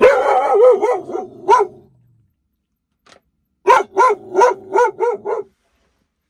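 A dog barking in two runs: about five barks, a pause of about two seconds, then about six more. It is alert barking at something unseen outside in the dark.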